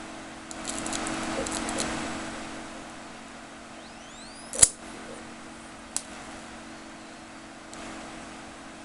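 ZVS driver on a large flyback transformer running with a steady electrical hum, with a high-voltage arc crackling for a second or so early on. One loud sharp snap comes about halfway through and a smaller one a little later.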